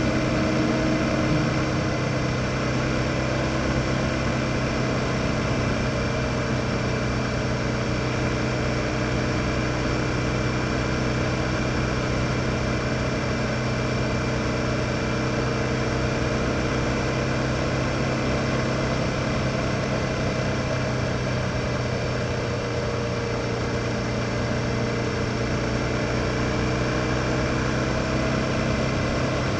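2007 BMW F650 GS's single-cylinder engine running at a steady, unchanging pitch and level while the motorcycle cruises.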